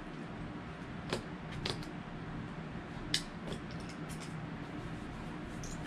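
A few sharp clicks and crinkles as a cardboard gift box and its wrapping are handled, over a steady low hum.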